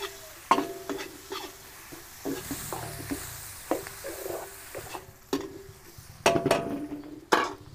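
A steel ladle scraping and knocking against a large aluminium wok while onions and garlic are stirred in hot margarine, over a faint sizzle. Each stroke leaves the wok ringing briefly, and a few louder knocks come near the end.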